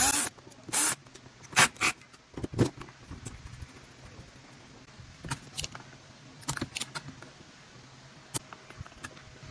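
Scattered sharp clicks and light scrapes of hand tools on metal as the heat sink is taken off an induction cooker's circuit board, coming in small irregular clusters.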